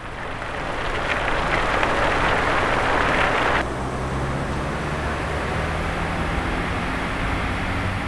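Designed car-driving sound effects: tyre and road noise swells up over the first few seconds, then cuts suddenly about three and a half seconds in to a steady engine drone as the car cruises.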